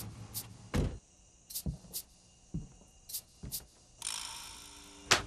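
Scattered sharp clicks and a few dull thumps, then a hiss that starts suddenly and fades, and a single loud knock near the end.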